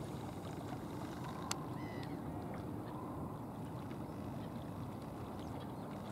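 Steady low rush of wind and lapping lake water, with one sharp click about one and a half seconds in.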